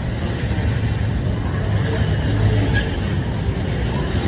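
Steady street traffic noise: a low, even rumble of road vehicles.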